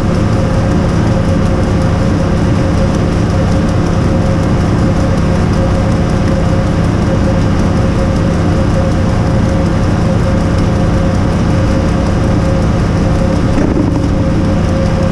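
Hydroseeder engine running steadily at constant speed while a load of mulch and seed is mixed in the tank, a loud, unchanging drone.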